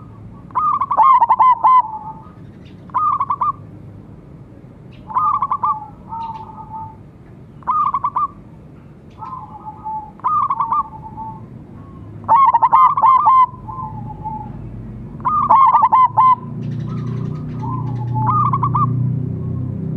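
Zebra doves (perkutut), a silver-morph bird and a local one, cooing in turn: short phrases of quick trilled notes, repeated about every one to two seconds, some brighter and some lower and softer. A low rumble builds under the calls near the end.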